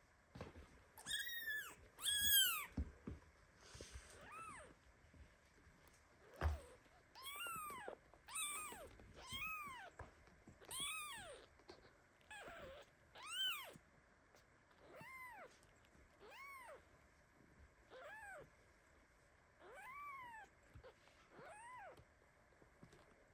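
Newborn kitten crying with repeated high, shrill meows, about one a second, each rising then falling in pitch; the loudest come near the start. The cries are the kitten's protest at the mother cat lying on top of it. A short soft thump about six and a half seconds in.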